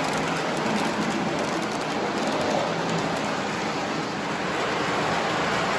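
Lionel O-gauge train, pulled by a 2338 GP7 diesel, rolling on three-rail tubular track: a steady running noise of wheels on the tin rails and the locomotive's motor.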